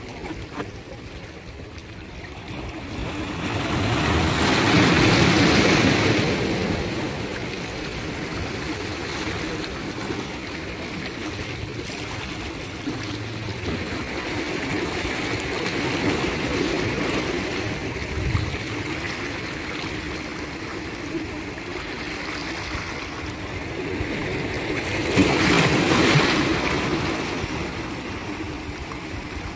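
Sea waves washing onto the shore: a steady wash of surf, with a big wave building and breaking about five seconds in and another near the end.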